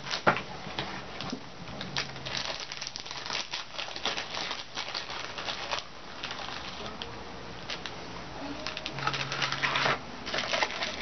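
Snack packaging crinkling and crackling irregularly as a biscuit packet is handled and opened.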